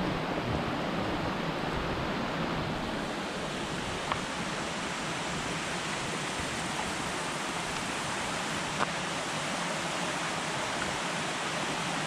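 Creek water rushing over rocks: a steady, even hiss of running water, with two brief clicks about four and nine seconds in.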